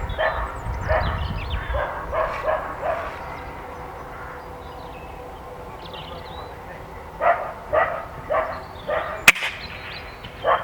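A dog barking repeatedly in two runs of short barks. About nine seconds in comes one sharp crack, a single shot from an Air Arms S510 PCP air rifle.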